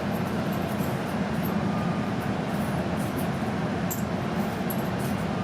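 Cabin noise inside an E5-series Shinkansen train pulling out of the station: a steady low rumble and hum with faint scattered clicks.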